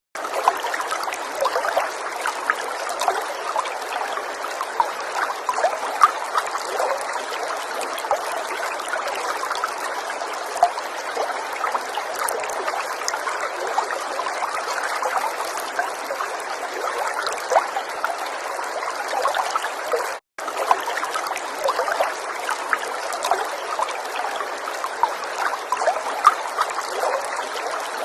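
Falling water trickling and splashing steadily, with many small droplet splashes over a continuous rush. The sound drops out for a split second about twenty seconds in.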